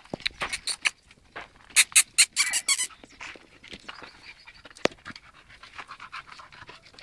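Patterdale Terrier and Jagdterrier dogs playing, with two quick runs of short, sharp dog sounds in the first three seconds, then quieter scuffling sounds.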